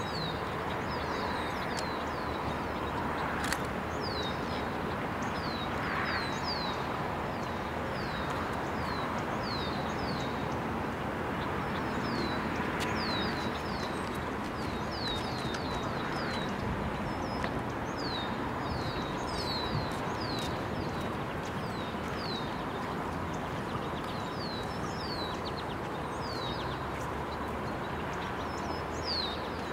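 Birds chirping over and over, short falling chirps scattered throughout, above a steady background rumble.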